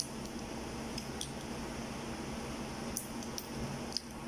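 Cooked shellfish being pulled apart by hand, with a handful of short, sharp shell clicks and cracks over a steady low hum.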